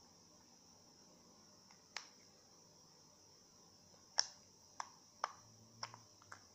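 Butter slime being squeezed and kneaded by hand, giving off short sharp clicks and pops: one about two seconds in, then five more close together in the second half.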